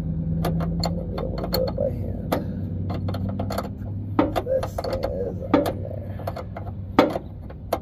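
Metal wrench clicking and clinking at irregular moments while a fuel-line fitting is unscrewed, with one louder clack near the end, over a steady low hum.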